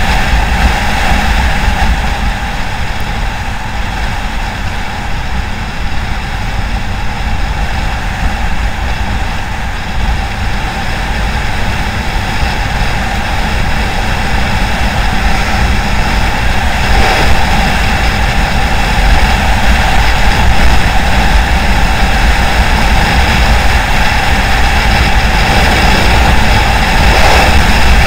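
Small motorcycle engine running while riding at road speed, with wind buffeting the microphone; the noise grows louder in the second half.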